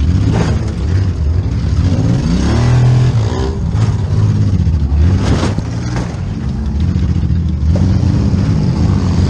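Demolition derby car's engine revving hard, rising and falling in pitch again and again, with a few short bangs among the revs.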